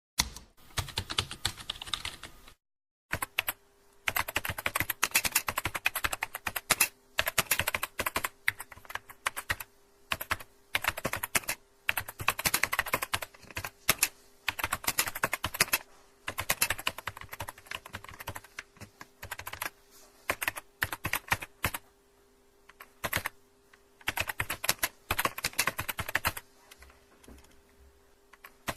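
Computer keyboard being typed on: rapid key clicks in bursts of a second or two, with short pauses between them.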